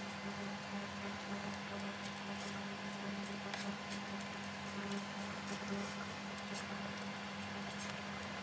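Pan of boiling water with spaghetti in it: faint bubbling and many small ticks over a steady low hum.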